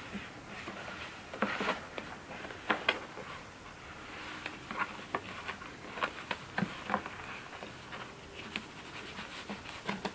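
A fishnet stocking being stretched and pulled over a craft pumpkin: irregular rustling, scratching and light taps of fabric and fingers against the pumpkin's shell.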